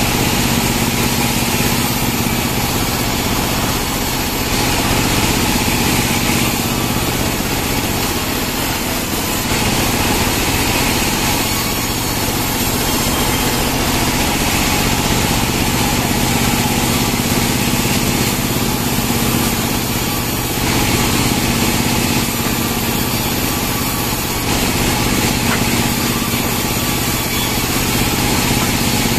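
Band sawmill running steadily: a dense, constant machine noise that swells and eases a few times.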